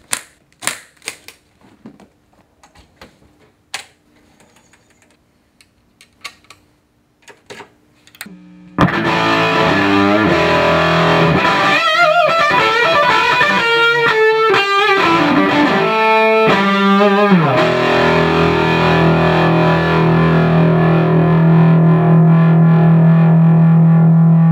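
Metal guitar case latches clicking open, then about nine seconds in an electric guitar played loud and distorted through a freshly built JTM 45 Plus tube amp kit: a run of notes with bends, then a chord left to ring on.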